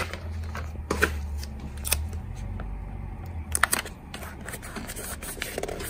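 Hands applying a round sticker to a purple corrugated cardboard mailer box: a few sharp clicks and taps of fingers and nails on the cardboard, over a low hum that fades about two seconds in.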